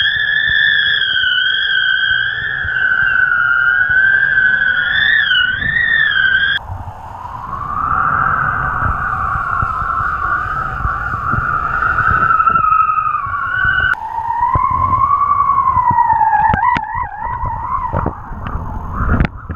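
Wind whistling in the kite lines and line-mounted camera: a loud, wavering high whistle over the low rumble of wind on the microphone. The pitch drops abruptly twice, and near the end it wobbles quickly with a few sharp clicks.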